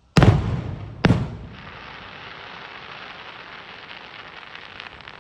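Fireworks: two loud bangs about a second apart, each dying away, followed by a steady dense crackle.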